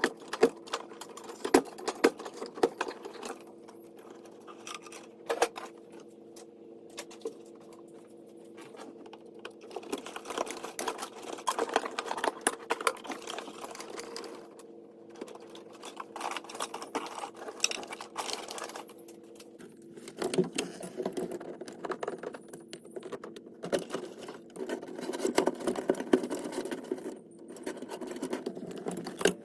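Fast, irregular clicking and rattling of hand work on a car's wiring and trim, over a steady hum.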